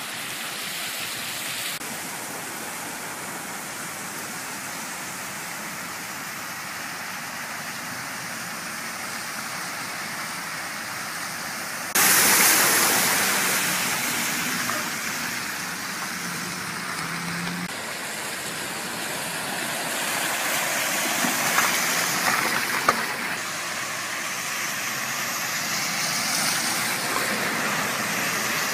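Floodwater rushing over a street after a heavy rainstorm, a steady rush of water. About twelve seconds in it turns suddenly louder, then eases off, and it swells again later.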